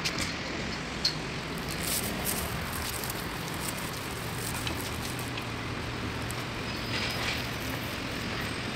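Steady outdoor street traffic noise, a continuous rumble with a few faint scattered ticks.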